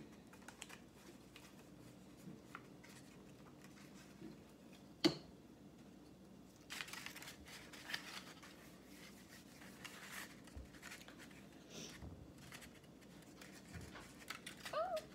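Paper being handled and pressed together during gluing: soft scattered rustles and scrapes, with one sharp tap about five seconds in.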